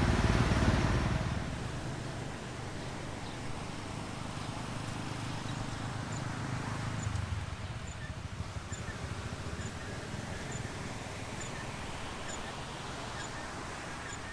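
Outdoor ambience: a steady low rumble with faint, short high chirps repeating about every half second from around six seconds in. A louder sound fades out in the first second or so.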